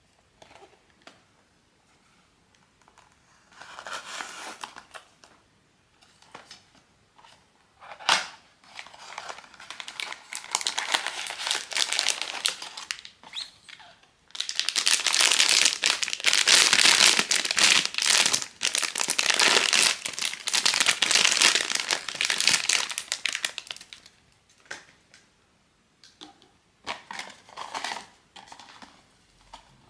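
Blind box packaging crinkling and tearing as it is unwrapped by hand. It comes in bursts, with a sharp snap about eight seconds in and a long stretch of continuous crinkling through the middle.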